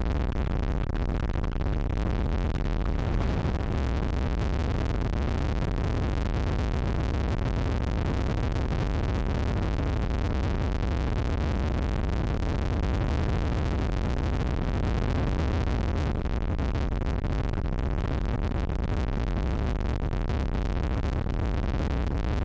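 Steady wind rushing over the microphone with the rumble of a car driving at highway speed.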